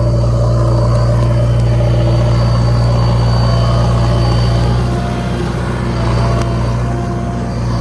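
Heavy diesel engine running steadily under load, its hum easing slightly about five seconds in and again near the end.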